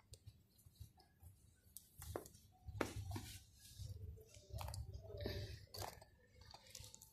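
Sandals on plastic hangers being handled and lifted off metal display hooks: scattered light clicks and rattles over a low rumble, busiest in the middle.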